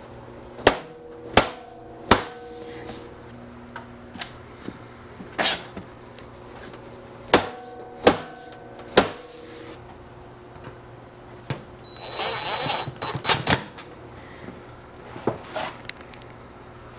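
Steel stove pipe being knocked and shifted as sections are seated, with about seven sharp metallic knocks in the first nine seconds, each ringing briefly. About twelve seconds in, a cordless drill runs for a second or so with a high whine, driving a screw into the pipe, and then there are a few lighter clicks.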